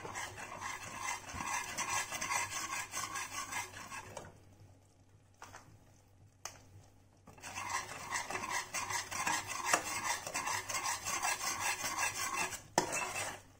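Metal spatula stirring and scraping thick melted jaggery syrup in a non-stick pan, in quick repeated strokes. The syrup has reached the set stage. The stirring pauses for about three seconds in the middle, then resumes, with a single sharp knock near the end.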